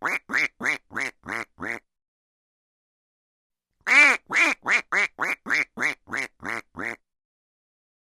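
A duck quacking in a quick run of quacks that grow softer, then after a pause of about two seconds a second run of about ten quacks that fades the same way.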